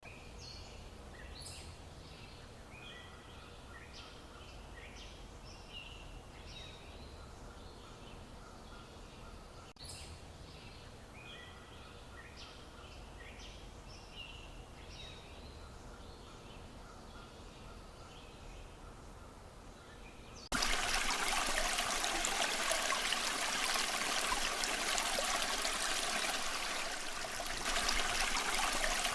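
Forest ambience: small birds chirping and calling over a faint low rumble, then about two-thirds of the way through it cuts abruptly to the louder, steady rush of a stream.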